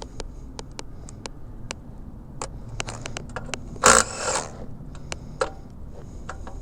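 Irregular metallic clicks of a ratchet and 12 mm socket working the exhaust bolts loose, with a louder scrape of metal about four seconds in.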